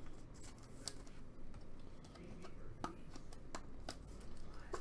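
Faint handling of a trading card and a clear plastic card holder: light rubbing with a few sharp plastic clicks spread through, as the card is slid into the holder.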